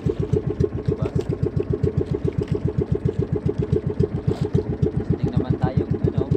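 Small fishing boat's engine running steadily under way, an even, rapid putter of about eight beats a second.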